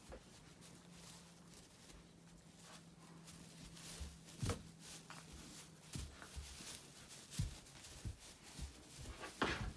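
Central Asian Shepherd puppies moving about on hay bedding: faint rustling and scattered light knocks, the loudest near the end. A faint steady hum runs underneath and stops about two-thirds of the way through.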